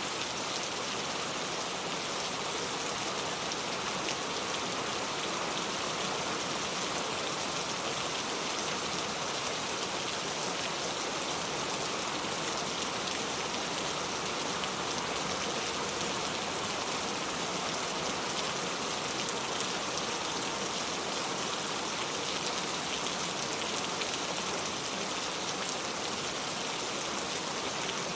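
Steady rain falling, an even hiss of drops on surfaces that neither builds nor eases.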